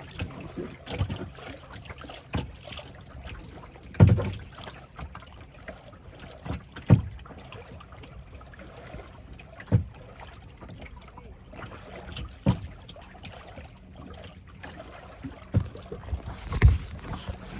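Water washing around a moving boat, with irregular low thuds of waves slapping the hull every couple of seconds.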